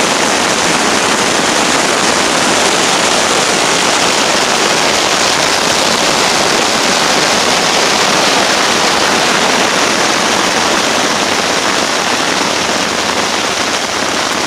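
Intense hail pelting the fabric of a bell tent, heard from inside: a loud, steady, dense rattle of countless small impacts that blend into one hiss.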